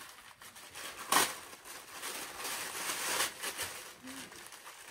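Plastic gift wrapping crinkling and rustling as a small bag is opened by hand, in an irregular run of crackles with a sharper one about a second in.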